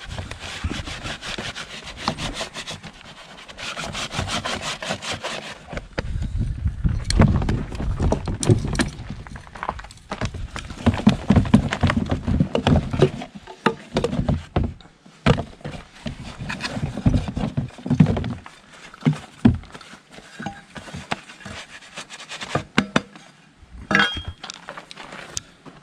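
Gloved hands rubbing and scraping oil-bonded Petrobond casting sand off a freshly cast aluminum plaque, in quick rough strokes. Then the sand mold is broken out of its wooden flask into a plastic tub, with heavy scuffing, crumbling sand, and scattered knocks of wood and metal.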